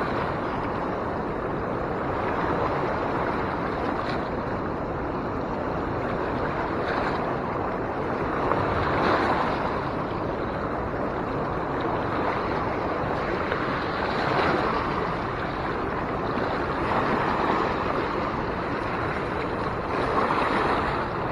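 Steady rushing of fast-moving river water, swelling slightly every few seconds.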